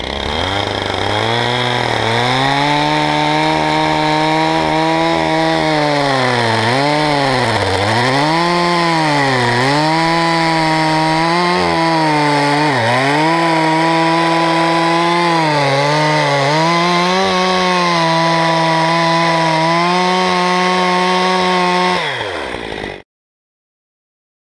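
Stihl two-stroke chainsaw running at high revs while plunge-cutting bar-first into the end grain of a spruce log. The engine pitch sags repeatedly as the bar is pushed in and loads the chain, then picks back up. The sound cuts off suddenly about a second and a half before the end.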